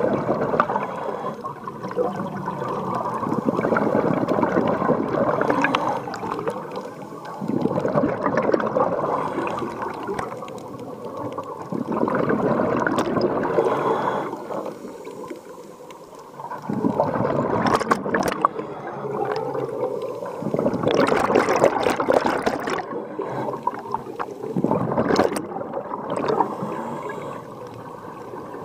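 Scuba diver's exhaled bubbles from a regulator underwater: a bubbling surge about every four to five seconds, with quieter pauses for the in-breaths between.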